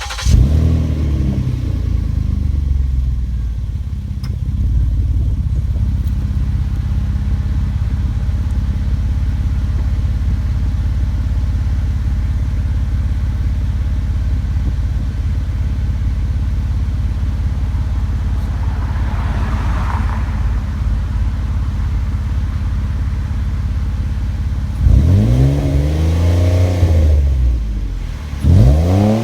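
Ford Taurus engine breathing through a custom exhaust with a 2½-inch pipe, an SLP bullet resonator and Magnaflow mufflers. It fires up with a flare that settles to a steady idle, then is revved twice near the end, the pitch climbing and falling back each time.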